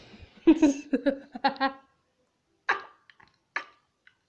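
A person's voice in short bursts: a quick run of pitched syllables, then two short breathy puffs about a second apart.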